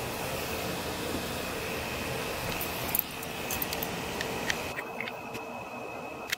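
Handling noise from a hand-held camcorder: light clicks and knocks, the sharpest about three seconds in, as it is handled and set down on a car's hood, over a steady hiss and hum that thins out near the end.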